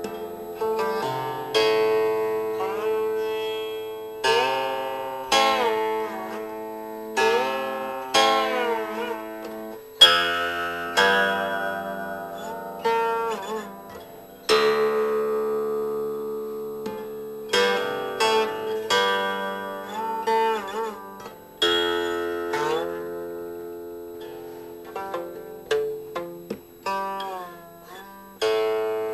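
Closing music on a plucked string instrument: a slow melody of single plucked notes and chords, many of them bent in pitch after the pluck, each note dying away before the next.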